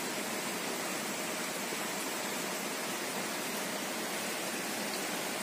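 A steady, even hiss of noise that does not change, with no distinct sounds in it.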